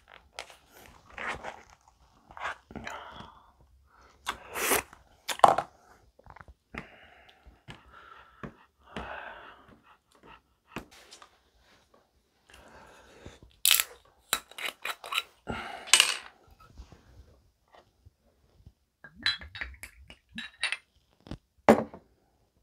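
Tableware handling during a meal: a plastic spoon scraping and stirring rice into soup in a plastic takeout container, with scattered sharp clicks and clinks of dishes, a glass soju bottle and a shot glass.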